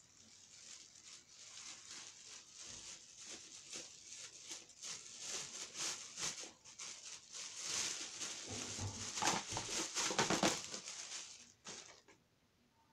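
Plastic packaging crinkling and crackling as it is handled and opened. The rustling builds up toward the middle and later part, then stops about a second before the end.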